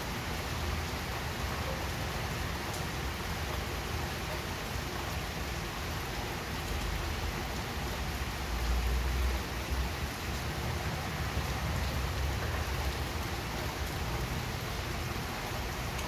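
Steady rain falling, an even hiss with no break. A low rumble swells briefly a little past halfway.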